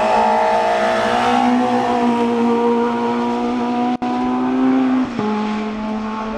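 A hill-climb race car's engine at high revs under hard acceleration through a tight bend, holding a steady, high engine note that climbs slightly. The sound cuts out for an instant about four seconds in, and the note steps to a slightly different pitch about a second later.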